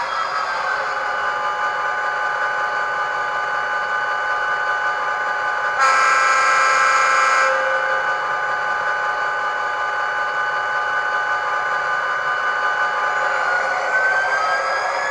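ESU LokSound decoder in a KATO HO-scale SD45 model, playing the sound of a 20-cylinder EMD diesel through its small speaker. The engine runs steadily with a whine that slides down in pitch near the start and climbs again near the end. A horn blast of about a second and a half comes about six seconds in.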